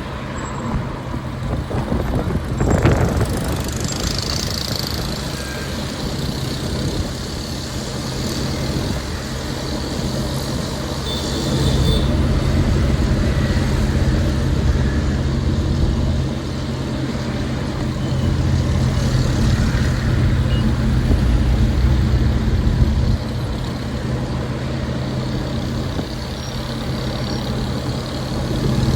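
City street traffic: vehicle engines running with a steady low hum, a louder vehicle passing about three seconds in.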